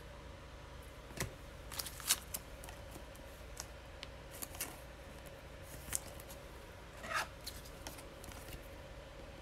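Glossy Panini Mosaic basketball trading cards handled and slid against one another: scattered light clicks and rustles, loudest about two seconds in and again about seven seconds in, over a faint steady hum.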